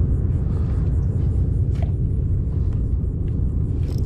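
A steady low rumbling noise with no distinct tone, and a faint click a little under two seconds in.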